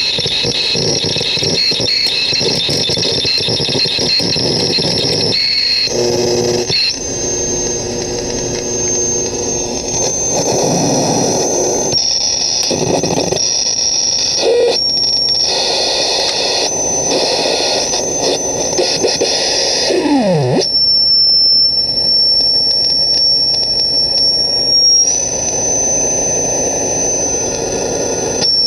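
Homemade crystal-radio noise synth putting out harsh static with high whistling tones that flicker and jump in pitch while its brass contacts are bridged by hand. About twenty seconds in, a low tone sweeps quickly downward, and after that a single steady high whistle holds over the hiss.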